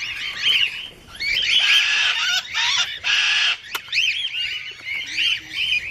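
Parrots in a large aviary flight screaming and squawking, several birds calling over one another in loud, harsh, repeated screeches, with some long screams among them.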